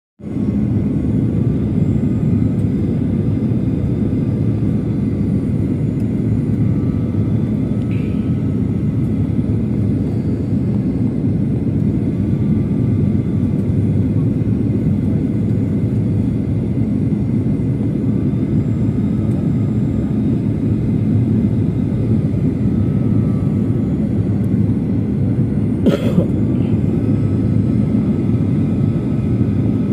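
Steady airliner cabin noise in flight: a continuous low rumble of engines and airflow, with one brief sharp click near the end.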